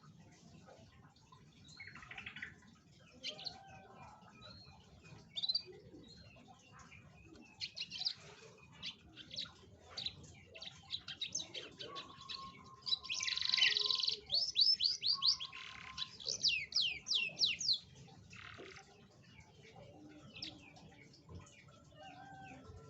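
Domestic canary singing: scattered chirps, then from about halfway through a loud stretch of rapid trills and quickly repeated high notes, with a held lower whistle under parts of it, before it falls back to scattered chirps near the end.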